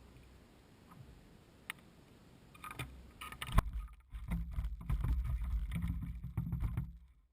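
Close handling noise: a sharp knock about three and a half seconds in, then a few seconds of low thumps and rumbling with scattered clicks, which stops near the end.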